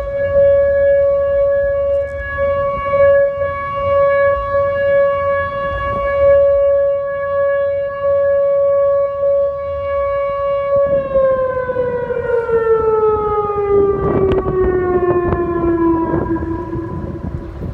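Whelen tornado warning siren sounding a steady tone during a siren test. About two-thirds of the way through, its pitch glides down and settles on a lower note. Wind buffets the microphone underneath.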